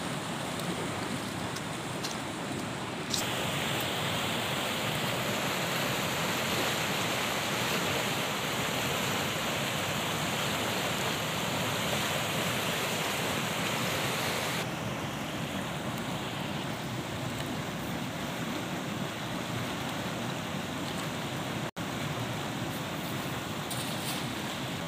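Steady rushing of a fast-flowing river. From about three seconds in to about fifteen seconds in, it gives way to a louder, hissier rush of white water pouring over a concrete weir.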